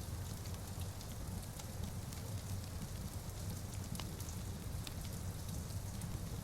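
Wood fire crackling with scattered sharp pops, over a steady low rumble and a soft, even hiss of rain.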